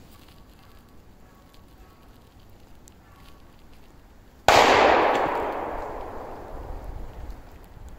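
A single shotgun shot about four and a half seconds in, its report dying away through the woods over about three seconds.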